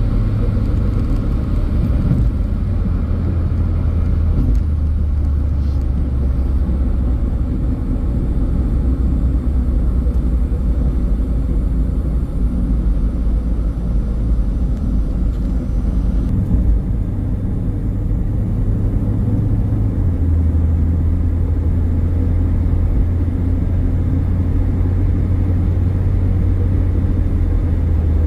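A car driving along the road: a steady low rumble of road and engine noise, its drone shifting in pitch a couple of times.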